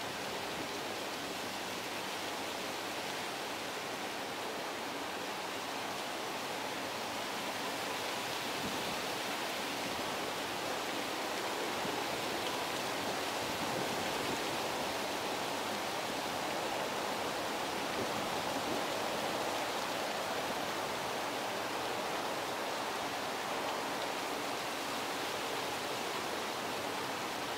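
Steady, even rushing ambient noise with no distinct events.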